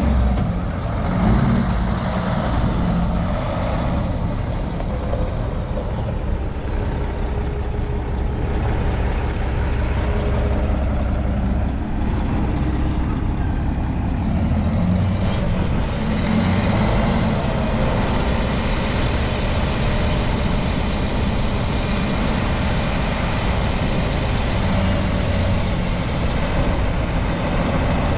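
Heavy diesel engine of a Kenworth T800 quad-axle dump truck running steadily. About halfway through, a high whine comes in, holds steady, and falls away near the end as the dump body is raised hydraulically.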